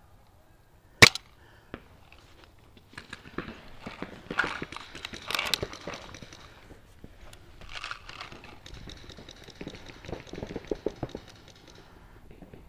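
Paintball marker shots: one loud sharp pop about a second in and a weaker one shortly after, followed by stretches of scattered clicks and crackling rustle.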